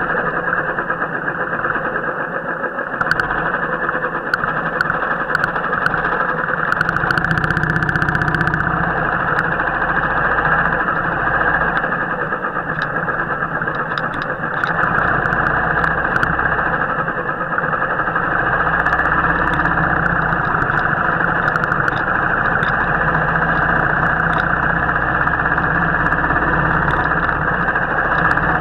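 Royal Enfield motorcycle engine running steadily, with scattered sharp clicks and a brief hiss about seven seconds in.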